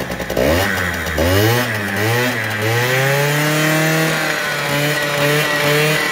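Piaggio Quartz scooter's two-stroke engine being revved hard just after starting: a few quick throttle blips, then held at high revs for about three seconds before being let back down at the end.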